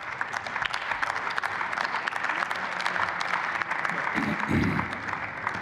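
Applause from parliament members in a large chamber: many hands clapping steadily, dying away near the end.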